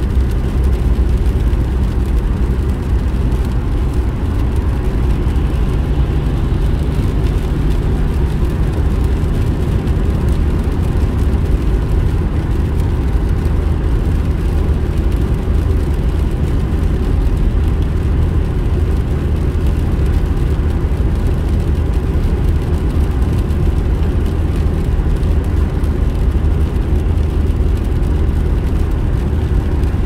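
Steady low rumble of a car's engine and tyres heard from inside the cabin while driving at motorway speed on a wet road.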